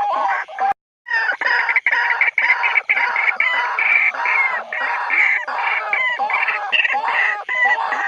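White-breasted waterhens giving territorial calls: a dense run of short, repeated pitched notes overlapping one another, broken by a brief silence just under a second in.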